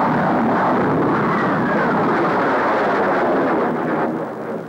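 Jet fighter's loud roar, a dense rushing noise with a faint falling whine, dying away about four seconds in. This is the aircraft's noise catching up with it as it slows below the speed of sound in the pullout from a supersonic dive.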